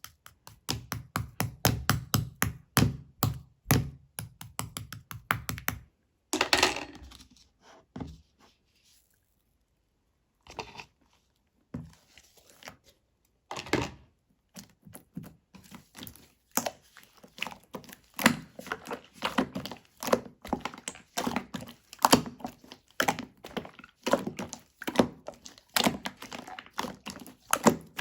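Slime being squeezed and pressed by hand, making quick trains of sticky popping and clicking sounds. There is a lull of a few seconds about a third of the way through, after which the popping starts up again.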